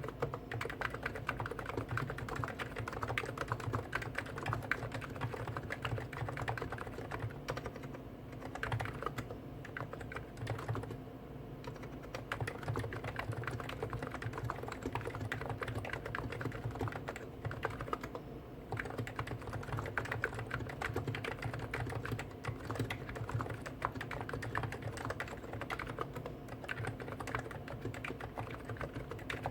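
Fast, continuous typing on two Hansung GTune electrostatic capacitive keyboards at once, a CHF4 Snow White with 50 g switches and a CHF7 OfficeMaster with 55 g switches: a dense patter of key strokes, thinning briefly a few times.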